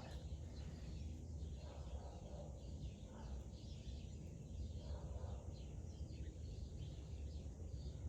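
Faint outdoor background: a steady low rumble with small birds chirping repeatedly in the distance.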